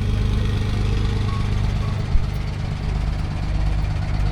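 Engine idling steadily with a low, even hum, most likely the diesel railcar of the Talca–Constitución branch line; a short thump sounds about two seconds in.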